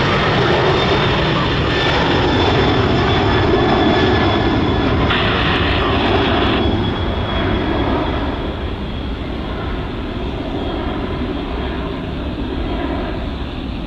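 Jet engines of a twin-engine FedEx widebody freighter climbing out after takeoff: a loud, steady roar with a faint high whine, dropping off after about eight seconds as the jet pulls away.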